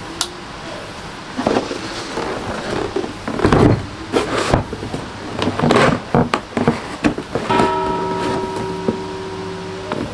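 A large cardboard model-kit box being put down and handled on a cutting mat: irregular knocks, sliding scrapes and rustles of the card. A steady tone of several held pitches sounds over the handling for the last couple of seconds.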